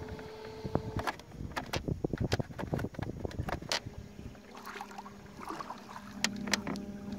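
Minn Kota electric trolling motor running with a steady hum that drops to a lower hum partway through, with a run of sharp clicks and knocks in the middle.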